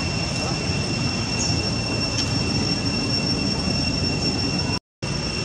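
Steady high-pitched insect drone held on one even tone, over a constant low rumbling background noise; it all drops out for a split second near the end.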